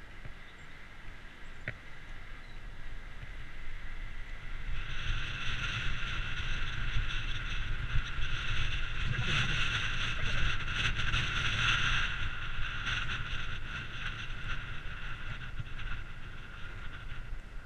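Bicycle riding over a bumpy tarmac path: tyre rumble and rattling from the bike and camera mount, with wind on the microphone. It grows louder about a quarter of the way in, is roughest around the middle with a crackle of small knocks, and eases near the end.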